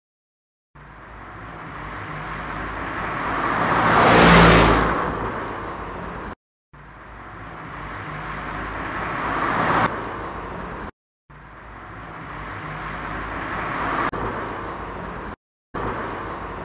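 A car driving along streets: steady road and engine noise in three short takes. Each take swells up gradually and then cuts off abruptly. The loudest swell comes about four seconds in and then dies away.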